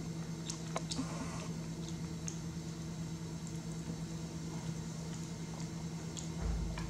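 Baby macaque nibbling and chewing a snack held in her hands: small, scattered wet clicks and smacks. A steady low hum underlies it, and a low thump comes near the end.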